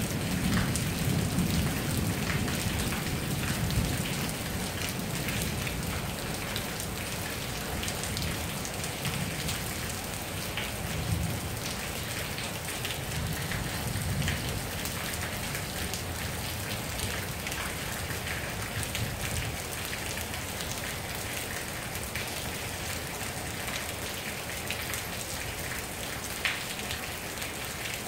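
Steady rain falling, with many sharp drop hits close by. Low thunder rumbles through the first few seconds, fades, and briefly rumbles again around halfway.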